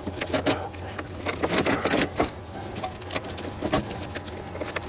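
Irregular metallic clicks, knocks and clinks of hand tools and parts being handled during reassembly.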